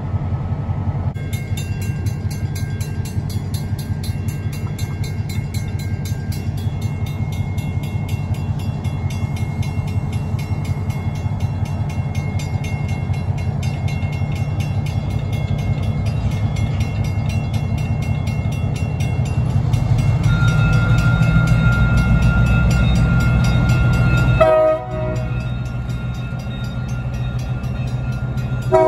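Western-Cullen-Hayes mechanical crossing bell ringing with rapid strokes over the low rumble of diesel locomotives passing through the crossing. The locomotive rumble grows louder about two-thirds of the way through, and a short horn blast sounds right at the end.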